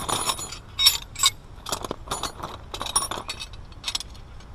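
Metal hand tools clinking and tapping on metal, an irregular string of sharp clicks and clanks with no steady rhythm.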